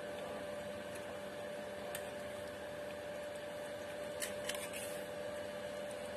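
Steady kitchen hum with one constant tone and a faint hiss, from the stove area as masala cooks on a low gas flame. Two light clicks about four seconds in, as spices are spooned into the kadhai.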